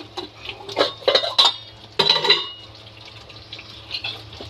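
Steel utensils clinking and clattering as a steel spice bowl and spoon are handled, in three short bursts about a second in, around a second and a half, and just after two seconds, each with a brief metallic ring. A steady low hum runs underneath.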